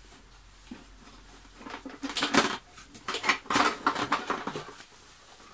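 The hard plastic housing of an Eta Neptun vacuum cleaner clattering and knocking as it is handled and its top part lifted off. A run of rattles starts about a second and a half in and dies down near the end.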